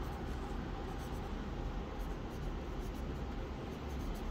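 0.7 mm HB lead of a BIC Shimmers mechanical pencil scratching on paper as words are handwritten, a soft run of short strokes.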